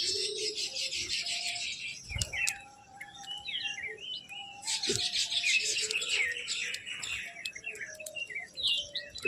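Many small birds chirping and chattering together, with dense, overlapping short chirps and quick sweeping notes. A dull thump comes about two seconds in.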